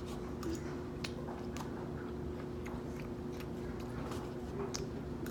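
Someone chewing and biting food, with scattered small clicks, over a steady low hum.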